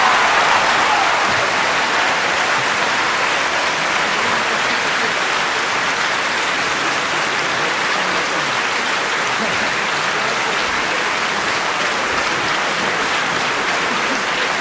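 School crowd cheering and applauding: a dense, steady wash of many voices and hands clapping, a little louder at the start and then holding level.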